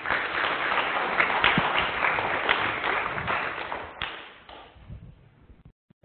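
Audience applauding, a dense patter of many hands clapping that fades away about four to five seconds in.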